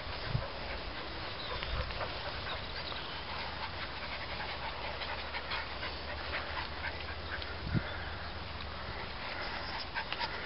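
Dogs moving about in the open, with faint panting and scattered small rustles and ticks over a steady low rumble; no loud barking.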